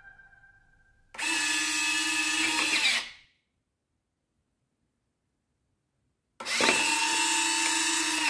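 Electric retractable landing gear of a foam RC model airplane whirring as its small motors run, twice for about two seconds each. The first run leaves the gear retracted and the second extends it again.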